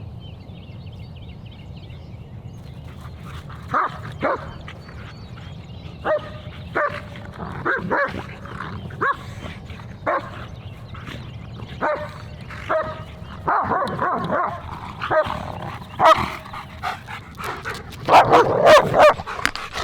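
German Shepherd barking and whining in short separate calls over a steady low hum, coming more often and louder near the end.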